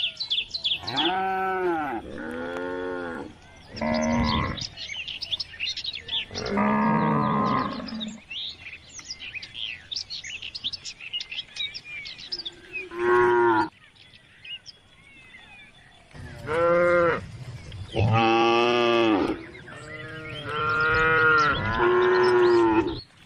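Calves mooing: a series of about nine loud, drawn-out calls that rise and fall in pitch, with short pauses between them and a longer lull in the middle.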